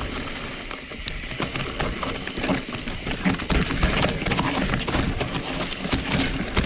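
A 2020 Norco Sight full-suspension mountain bike riding down a dirt trail: steady tyre noise on the dirt with many small irregular clicks, knocks and rattles from the bike over the bumps.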